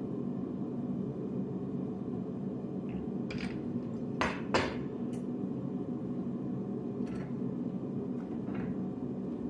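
Steel tongs and metal stock clinking and clanking on a workbench as they are picked up and handled. There are several scattered clinks, the two loudest a little over four seconds in, over a steady low rumble.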